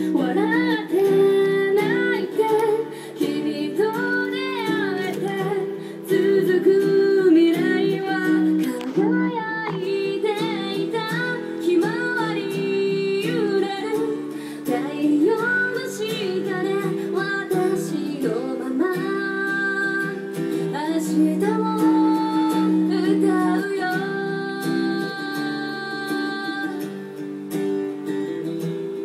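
Background music: a song with a woman singing over acoustic guitar.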